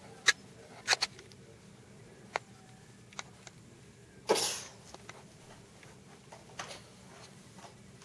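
Sharp plastic clicks from a child's toy gun being handled and triggered, several in the first three seconds, then a short loud hiss about four seconds in.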